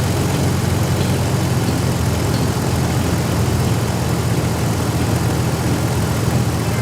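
Engine idling with a steady low rumble, as a vehicle sound effect.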